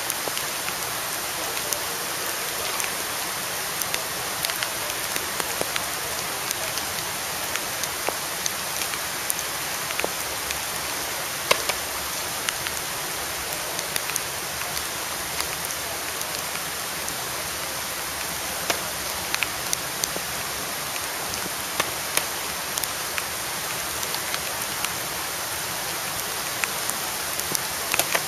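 Heavy rain pouring steadily, an even hiss with scattered sharp ticks.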